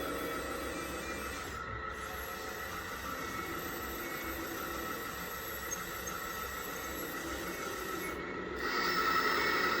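Hydraulic pump of a 1/14-scale RC hydraulic backhoe loader, whining steadily with a high squeal; it gets louder about nine seconds in.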